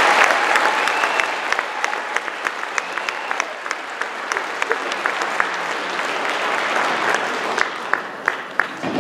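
Audience applauding after a children's choir song: a dense patter of clapping that eases off after the first seconds, with a few single sharp claps standing out near the end.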